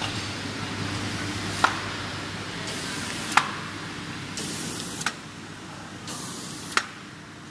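Automatic paper feeder cycling: a steady motor hum with a sharp clack about every 1.7 seconds, four times, most of them at the end of a short burst of air hiss.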